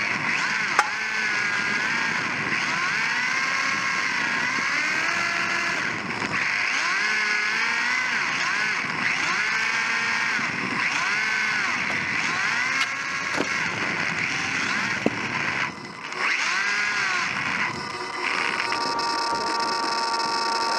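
Electric motor and gears of a Sakura D4 1/10 RC drift car whining from on board, the pitch rising and falling again and again as the throttle is worked through the drifts. Two sharp clicks stand out, about a second in and about 15 seconds in, and the whine steadies near the end.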